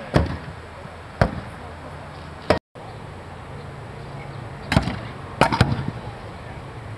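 Thrown blades striking a wooden throwing target: six sharp thunks at uneven intervals, the last two in quick succession.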